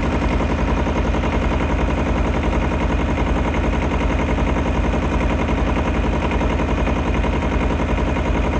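Tractor engine running steadily close by, with a rapid, even pulse of firing strokes.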